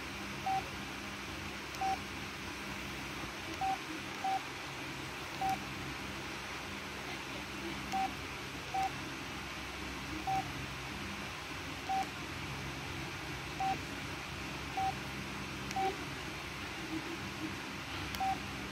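Keypad beeps from a Samsung Contour 2 cell phone as its buttons are pressed: about a dozen short beeps, all at the same pitch and spaced unevenly.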